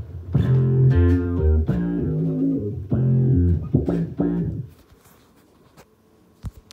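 Electric bass guitar played through an envelope filter with chorus added: a phrase of several plucked notes for about four and a half seconds, then it stops, followed by a couple of faint clicks near the end.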